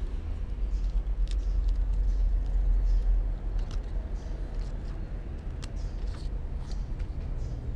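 Handling noise from a cat rubbing its head and pawing against a camera close to the microphone: fur brushing and bumping over a steady low rumble that swells for a couple of seconds, with a few small clicks.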